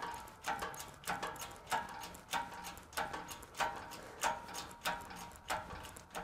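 Shop press being pumped by hand as it drives a wheel bearing race into a truck hub: evenly spaced metallic clicks, about three every two seconds, each with a brief ring.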